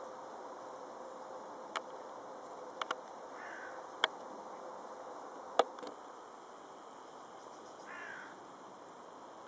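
Steady outdoor background hiss broken by several sharp clicks, the loudest about five and a half seconds in, with two short calls falling in pitch from a distant bird, one after about three and a half seconds and one near the end.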